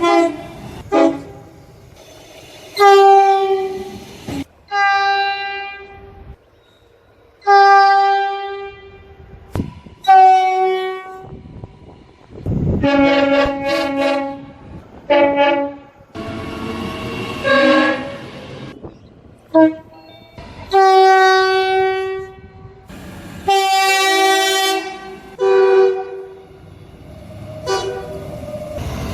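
Train horns sounding in a string of separate blasts, each lasting about a second or two, cut one after another with abrupt starts and stops.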